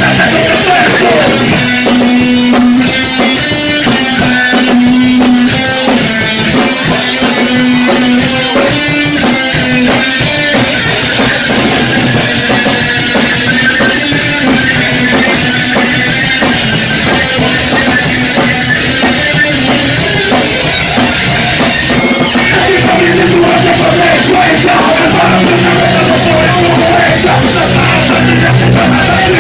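Punk rock band playing live at full volume: distorted electric guitar, bass and drum kit driving a fast, steady beat, with vocals over it.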